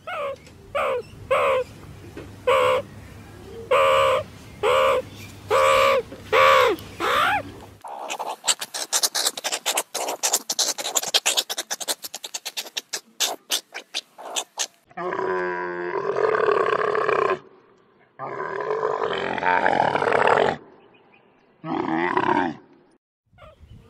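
A meerkat calling: about a dozen short, repeated calls, then a fast run of rapid chattering clicks. From about fifteen seconds in, a camel gives three long, low groaning grunts.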